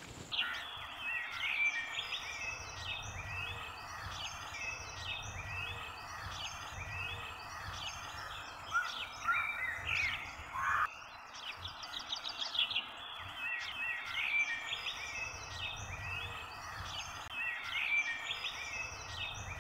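Small birds chirping and twittering over a faint steady background hiss, with one short rising call near the middle.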